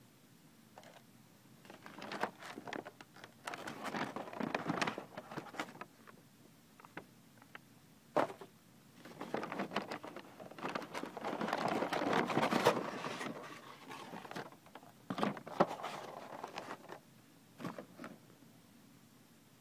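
Takeout packaging being handled: a clear plastic food-container lid crinkling and a paper takeout bag rustling, in irregular bursts with small clicks. The longest rustle comes about halfway through.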